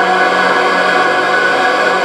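Drone music: a dense layer of sustained tones at many pitches held steadily together, with no beat or breaks.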